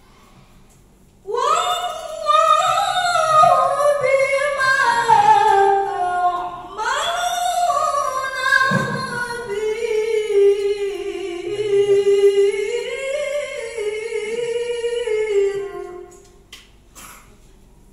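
A young woman chanting verses of the Quran (tilawah) solo, unaccompanied. She sings two long, winding, ornamented phrases with a short breath between them. The voice begins about a second in and stops a little before the end.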